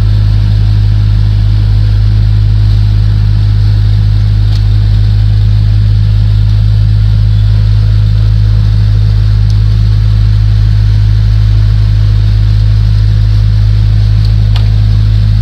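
A loud, steady low hum with no change in pitch or level, and a few faint clicks in the middle and near the end.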